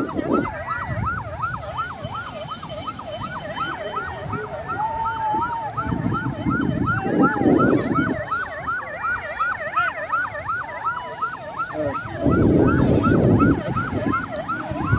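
An electronic siren-like tone warbling quickly up and down, about three and a half sweeps a second without a break. Gusts of wind buffet the microphone about six seconds in and again about twelve seconds in.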